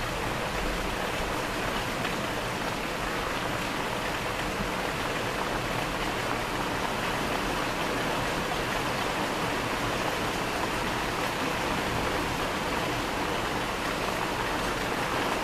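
Steady rain falling during a thunderstorm, an even hiss with no thunder.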